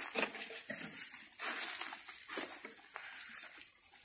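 Footsteps crunching on a dirt path and brushing through dry vegetation, as an irregular run of short scuffs and rustles.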